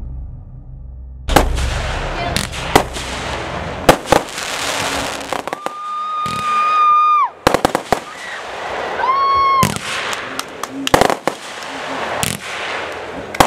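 A run of sharp bangs and crackles, with two high whistles among them: the first held about a second and a half, the second shorter and rising at its start.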